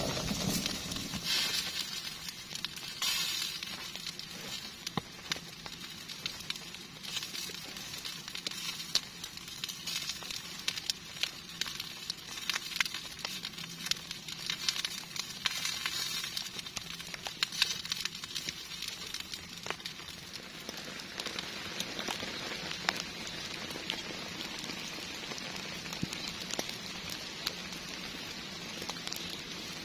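Heavy rain falling steadily, a constant hiss dotted with many sharp drop ticks. A low rumble of thunder dies away at the very start.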